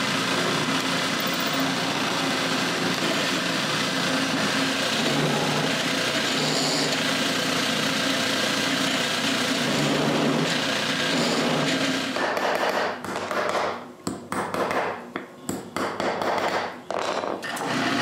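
Drill press running and boring holes in a wooden box, the motor humming steadily under the noise of the bit cutting the wood. Over the last several seconds the sound stops and starts again in short stretches.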